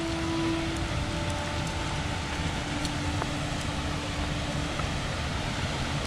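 Steady rushing of a waterfall and the river below it, an even wash of water noise.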